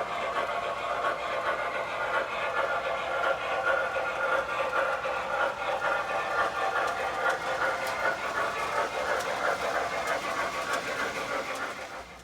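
Model train (a 4-6-6-4 Challenger locomotive pulling heavyweight passenger cars) running steadily on track: a continuous rolling rumble with a few light clicks. It drops away sharply near the end.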